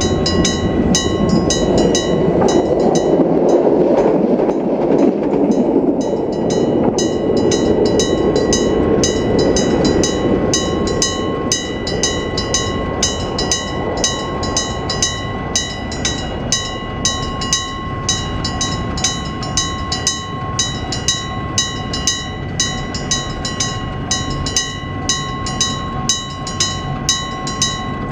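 Level-crossing alarm's Nippon Signal EG1003 AC electric bell ringing with steady, rapid strokes, while a train runs through the crossing. The train is loudest in the first few seconds and fades away by about halfway, leaving the bell ringing on its own.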